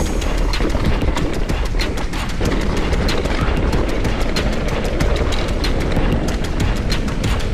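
Continuous rapid rattling and knocking of a mountain bike and its mounted camera jolting over a rough, rocky trail, over a steady low rumble of wind and tyres.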